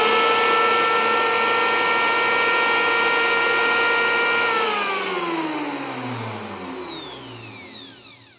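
Handheld electric planer running with no load, the cutter head at zero depth so nothing is being cut, giving a steady whine. About four and a half seconds in the trigger is released and the motor spins down, its pitch falling, until it stops near the end.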